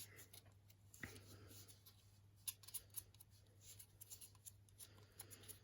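Near silence: room tone with a few faint clicks and light rustles of objects being handled.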